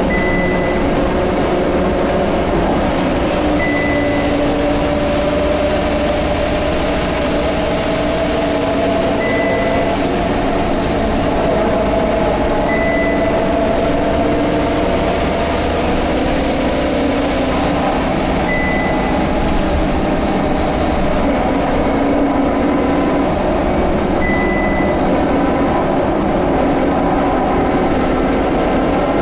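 Scania K230UB bus's five-cylinder diesel and driveline running under way, with a high whistle that rises and falls in two long swells and a lower whine moving with it. The uploader takes these strange noises for the turbo and the hub reduction axle. Short high beeps sound every few seconds.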